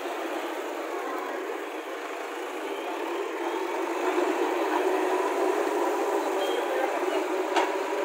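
JCB 3DX backhoe loader's diesel engine running steadily as the front loader bucket is lowered and pushed into a dirt pile, growing louder about four seconds in. A single sharp click near the end.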